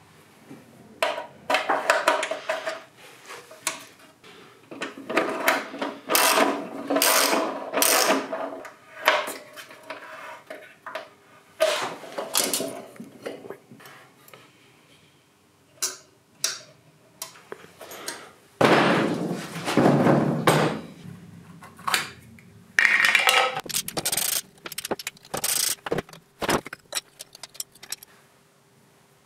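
Clinks, clicks and rattles of metal scooter parts and hand tools as a Vespa PK50 is taken apart: the choke lever and its cable are pulled from the frame, then the front fork hub is worked on. A longer, louder noise comes a little after two-thirds of the way through.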